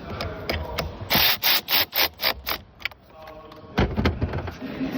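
BMW B58 inline-six being started with a newly fitted starter motor: a run of sharp mechanical clacks, about four a second, then the engine catching and running steadily from a little past halfway.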